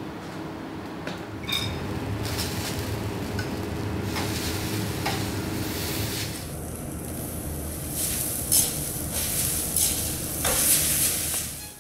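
Thin egg noodles sizzling in hot oil in a stainless steel wok, with sharp clicks of chopsticks against the pan as they are tossed. The sizzle gets louder in the last few seconds as seasoning goes into the wok.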